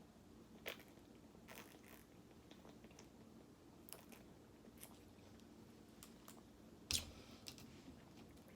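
Near silence broken by scattered small clicks and crackles, the loudest about seven seconds in.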